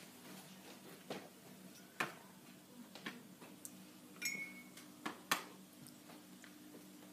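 Potter's wheel running with a faint low steady hum, under scattered sharp clicks and taps, about six in all, the loudest a little past five seconds in. A brief high squeak comes about four seconds in.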